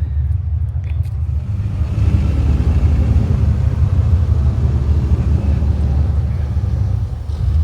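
A car's engine rumbling as it drives slowly past, swelling about two seconds in and easing off near the end.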